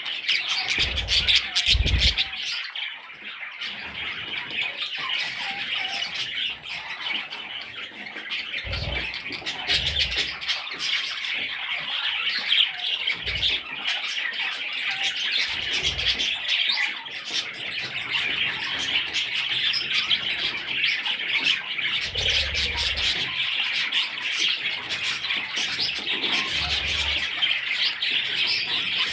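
Budgerigars chirping and chattering, many calls overlapping in a dense, unbroken stream, with a few dull low thumps scattered through it.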